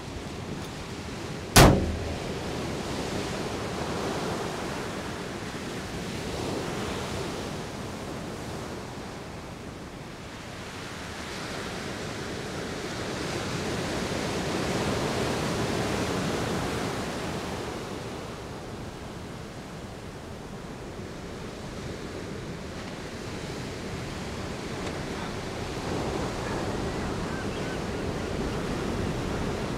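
Wind and sea surf, a steady rushing that swells and fades in slow waves. One sharp bang about a second and a half in stands out above it.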